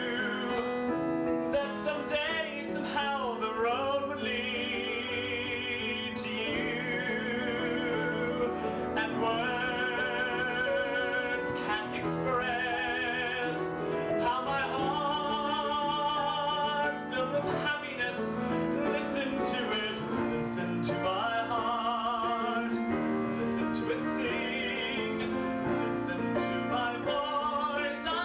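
A man singing a show ballad with piano accompaniment, holding long notes with a wide vibrato.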